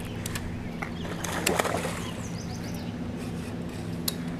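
Handling noise from a baitcasting rod and reel while a hooked walleye is played in: a few sharp clicks and knocks, and a louder rustling burst about a second and a half in, over a steady low hum. A bird gives a quick run of falling chirps near the middle.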